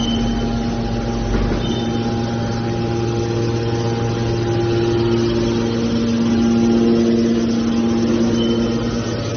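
Hydraulic scrap metal baler running: a steady machine hum with several held tones, and further higher tones joining about three seconds in as the load changes.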